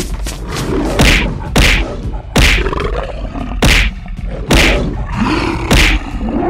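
Animated fight sound effects: a run of about six heavy hit impacts, roughly one a second, with animal roars and growls between them.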